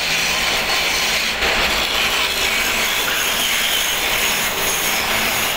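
Woodworking lathes running while tools cut into the spinning wood, a steady dense rasping noise.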